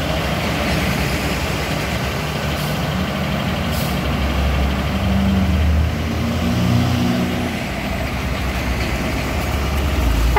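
Heavy diesel trucks passing close by on the road, with a steady low engine drone and a louder truck engine note swelling and rising in pitch midway through. Two short hisses come around two and a half and four seconds in.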